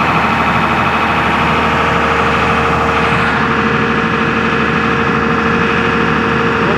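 Hyundai R215L excavator's diesel engine running steadily under hydraulic load, a function held at the end of its stroke over the main relief valve, which is opening at about 200 bar instead of the normal 300. A steady tone in the sound stops about three seconds in.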